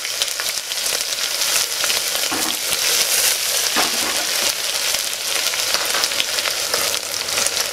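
Freshly added sliced onions sizzling and crackling in hot oil with whole spices in the base of a pressure cooker, a steady frying hiss with a few sharper pops.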